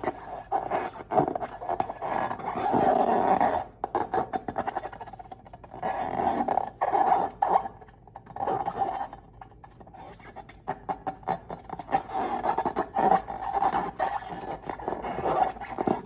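Rubber balloons squeaking and groaning as they are squeezed and handled, with wet crackling clicks from slime being worked by hand.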